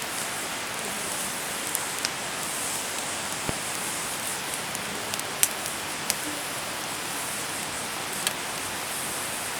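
Wood bonfire burning with a steady hiss, broken by a handful of sharp crackles and pops. The loudest pop comes about five seconds in.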